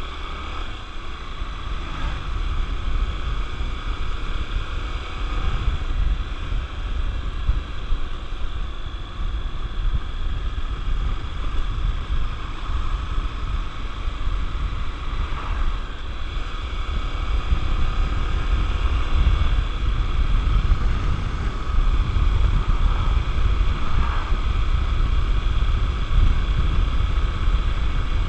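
Wind buffeting the microphone on a moving Honda Tornado 250 motorcycle, over its single-cylinder engine running steadily; the rush grows slowly louder as the ride goes on.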